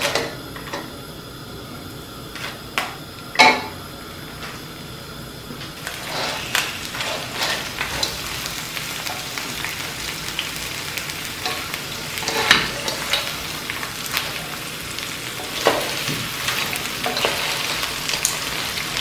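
Raw crab pieces frying in a little oil in a wok, sizzling, with a wooden spatula knocking and scraping against the shells and pan as they are stirred. The sizzle grows louder and steadier about six seconds in.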